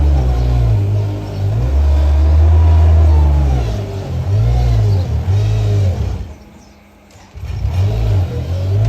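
An engine revving up and down in repeated swells, dropping away for about a second roughly two-thirds of the way through and then picking up again.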